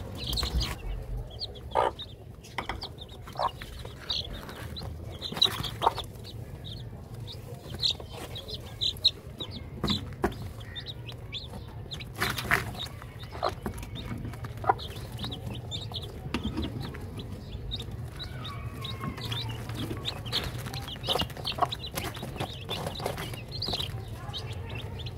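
Baby chicks peeping in many short high calls, with a hen clucking among them, and sharp taps of beaks pecking at grain.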